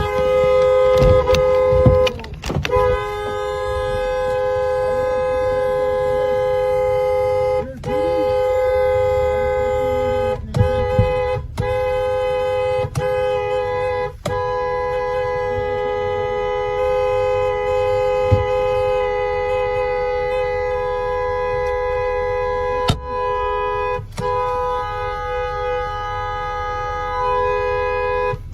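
Car horn held down almost without let-up: a steady two-tone blare, broken several times by short gaps. It is a protest honk aimed at agents standing by the car.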